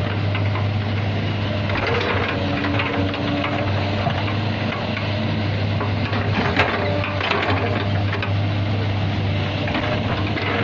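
Kobelco crawler excavator's diesel engine running steadily with a low hum while its bucket digs and scrapes through loose dirt, with scattered knocks and clatter from the bucket and falling soil.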